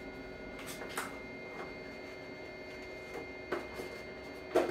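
Steady whirring hum of a portable power station's cooling fan, made of several held tones, with a few light clicks and a louder click near the end.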